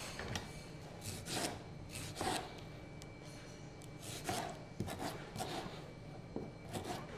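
Kitchen knife slicing tomatoes and knocking on a plastic cutting board: faint, irregular strokes, a few in the first two seconds, then a quicker run of cuts after a short pause.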